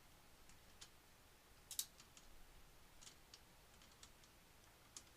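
Faint, scattered clicks and light taps of small hard computer parts and tools being handled. The loudest is a sharp click almost two seconds in.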